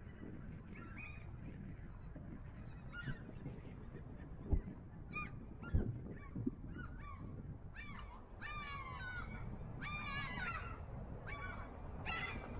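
Gulls calling in a run of short, high-pitched cries, sparse at first and coming thicker and louder in clusters over the second half. Two low thumps stand out about four and a half and six seconds in, over a steady low background rumble.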